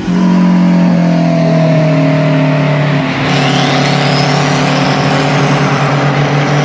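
Car engine running loud and steady at constant revs, a continuous drone, with a faint rising whine about three seconds in.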